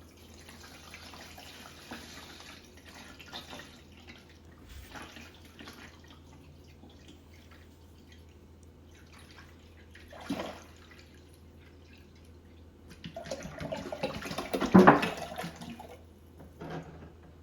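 A gallon of distilled water poured into the tank of a Levoit LV600S ultrasonic humidifier: a steady faint pouring, with louder, uneven sloshing about ten seconds in and again around fifteen seconds.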